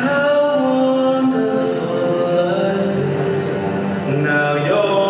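Figure skating short-program music played over the ice rink's speakers: held notes under a slowly moving melody.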